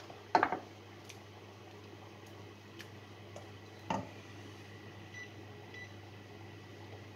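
Wooden spoon knocking against a stainless steel saucepan of simmering curry: two quick knocks about half a second in and one more about four seconds in, over a steady low hum.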